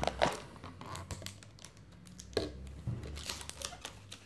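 Parcel packaging being handled: intermittent rustling and crinkling with scattered light clicks, in short bursts a second or so apart.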